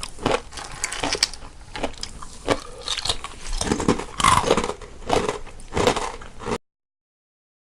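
Two people crunching and chewing snacks close to the microphone, one panned left and one right, in quick irregular crunchy bites. The sound cuts off abruptly about a second before the end, leaving dead silence.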